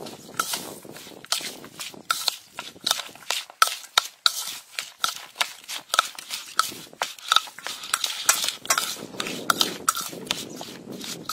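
A metal spoon stirring a wet mix of minced pork and diced vegetables in a bowl, clicking against the bowl in a steady rhythm about two to three times a second.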